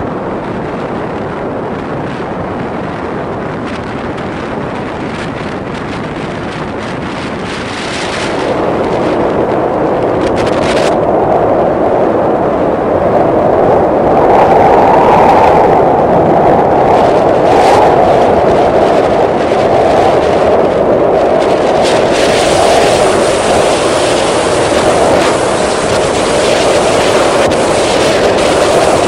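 Wind blowing across the microphone, a steady rushing that grows louder about eight seconds in and stays strong.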